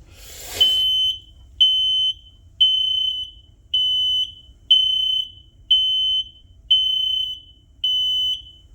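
Two Kidde photoelectric 3010L smoke alarms sounding in test mode: a run of loud, high-pitched beeps, each about half a second long, coming about once a second. A short burst of noise comes just before the first beep.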